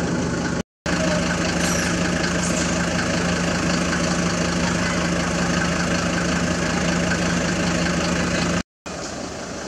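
Steady low motor hum with an even, unchanging drone. It cuts out briefly under a second in and again near the end.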